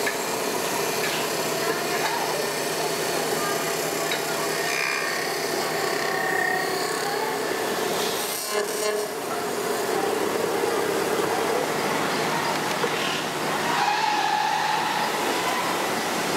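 Lathe spinning an aluminium pressure cooker body while a hand-held cutting tool shaves metal from its inside: a steady machine hum with the scraping of the cut and a few brief higher tones. The sound dips briefly about eight seconds in.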